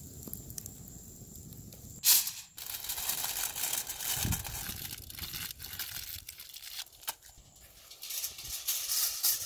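Aluminium foil torn off the roll with a loud rip about two seconds in, then crinkled and folded by hand in irregular rustling, crackling bursts. The first two seconds hold a low steady rumble.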